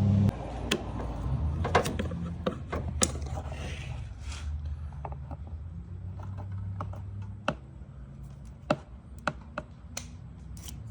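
Scattered sharp metallic clicks from hose clamp pliers being worked, their locking ratchet catching as the handle is squeezed and released, over a low steady hum.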